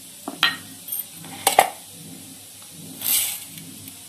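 Hand moving through dry raw rice in a stainless steel bowl: a few light clicks against the steel in the first two seconds, then a short grainy rustle about three seconds in.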